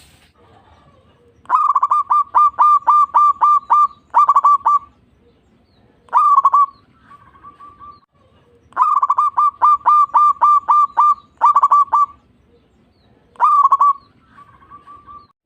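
Zebra dove (perkutut) singing: several phrases of rapid, clear cooing notes, about five a second, with short pauses and softer trills between them.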